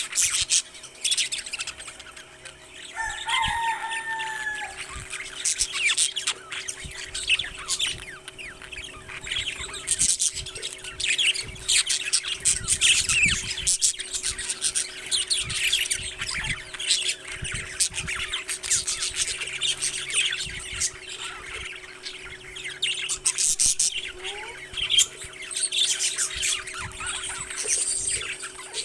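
Parrots chirping and chattering continuously in quick, clicky calls, with a short whistled call about three seconds in. A faint steady hum runs underneath.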